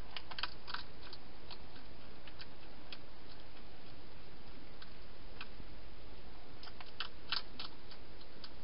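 Wild hedgehog eating: irregular clicks of chewing, in a cluster near the start and another about seven seconds in, over a steady background hiss.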